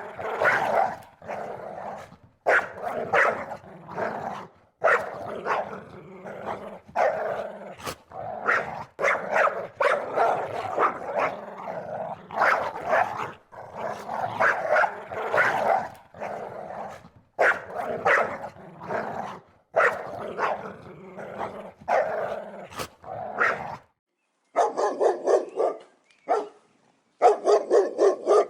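Dog barking repeatedly in quick volleys. About 24 seconds in, after a short silence, a different recording of rapid, short barks follows.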